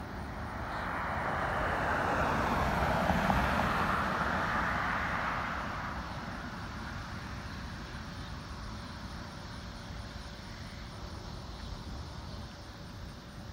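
A vehicle passing by: its noise swells to a peak about three seconds in and fades away by about six seconds. Steady outdoor background noise follows.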